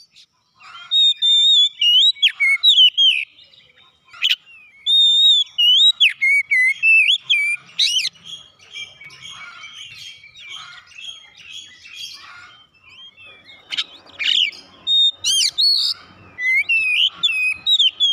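Oriental magpie-robin singing: loud whistled phrases of rising and falling slurred notes broken by short pauses, with a softer stretch of scratchy chatter in the middle.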